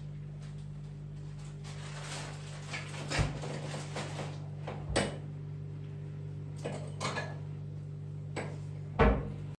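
Grated kaşar cheese being sprinkled by hand from a plate onto dough in a baking tray: soft rustling with a few short knocks, the loudest near the end, over a steady low hum.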